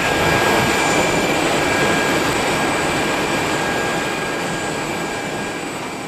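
Boeing 767-300ER's GE turbofan engines running as the jet rolls along the runway: a steady roar with a few thin high whining tones, slowly fading.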